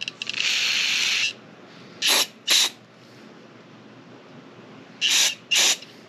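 Aerosol carburetor cleaner spraying through its straw into a small-engine pilot jet to blow it clear: one hiss about a second long, then two quick pairs of short sprays.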